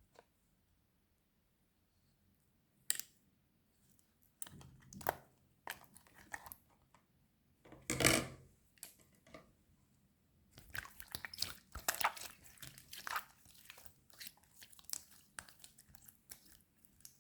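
Slime being handled close to the microphone: sticky, crackly clicks and pops. They come in scattered bursts at first, with one louder burst about halfway through, and become a dense run of crackling in the second half.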